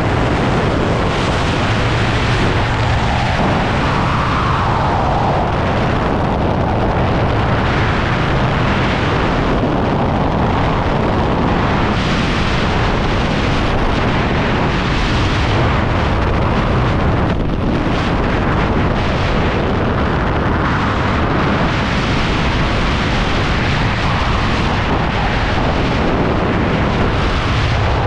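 Freefall airflow buffeting a skydiving camera's microphone: a loud, steady wind rush with no break.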